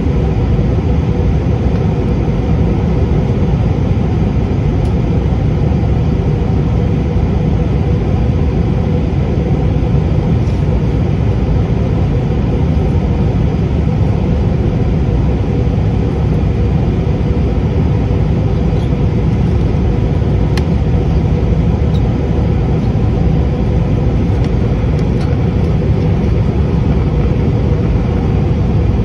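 Steady roar of an airliner's jet engines and rushing air, heard inside the cabin beside the wing during the climb after takeoff. It is mostly a deep, even rumble with a faint steady hum above it.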